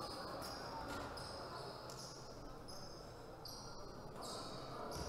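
Quiet gymnasium room tone between volleyball rallies, with a volleyball being bounced a few times on the wooden hall floor.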